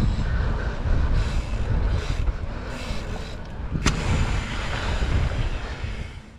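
Mountain bike rolling down a dirt trail: a steady rumble and rattle of tyres and frame, with one sharp knock about four seconds in, fading away near the end.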